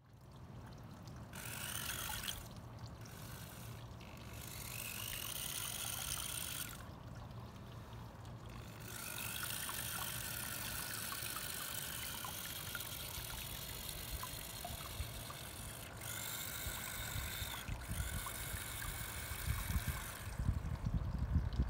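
The twin 300 rpm micro gear motors of a small 3D-printed paddle boat whine in stretches of a few seconds, starting and stopping as it is driven, while the paddle wheels splash and trickle water. Low, uneven rumbling buffets grow louder near the end.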